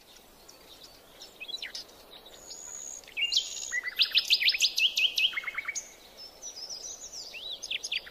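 Several birds calling and singing in a swamp over a faint hiss of drizzle. About three seconds in comes a fast run of repeated high notes, some sliding downward, lasting about three seconds, then more scattered calls near the end.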